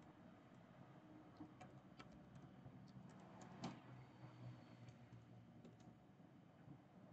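Faint typing on a computer keyboard: scattered key clicks over a low steady hum.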